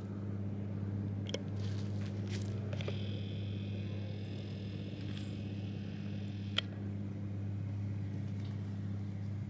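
A steady low mechanical hum, with a few sharp clicks and a faint high-pitched tone that comes in about three seconds in and stops a few seconds later.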